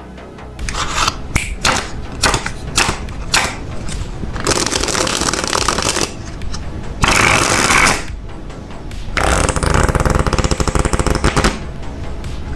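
A deck of playing cards being handled, with taps and clicks, rustling slides, and near the end a couple of seconds of rapid fluttering clicks as the cards are riffled. Background music plays underneath.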